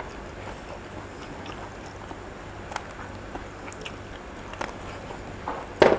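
Soft, wet handling sounds as a lemon half is squeezed by hand over raw oysters in their shells: faint squishes and a few small clicks, with one sharper click near the end.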